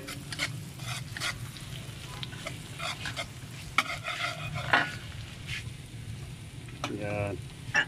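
A metal spatula scraping and stirring food as it fries and sizzles in a metal pan, in many short irregular strokes over a steady low hum. There is a brief pitched hum about seven seconds in.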